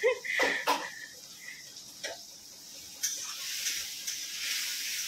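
Tomatoes and cumin frying in oil in a kadhai on a gas stove, stirred with a spatula. A few short knocks come first, then a steady sizzle sets in about three seconds in.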